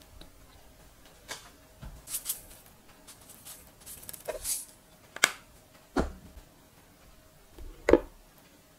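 Metal spoon clinking and scraping against a small glass bowl while a gochujang sauce is mixed, with three sharp clinks in the second half, the last the loudest. Earlier there are a few short, soft, hissy rustles as sesame seeds are sprinkled in.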